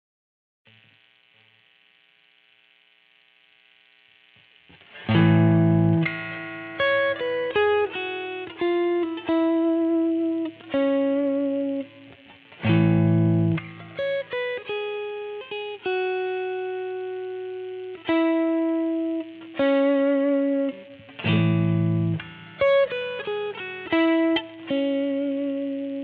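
Squier Vintage Modified Telecaster Thinline electric guitar played through a Peavey Vypyr VIP 2 amp with mild overdrive crunch. After a few seconds of faint amp noise, three strummed chords ring out, each followed by single picked notes.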